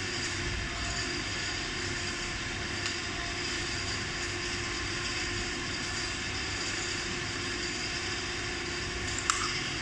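Steady background hum and hiss of room noise, with one sharp click near the end.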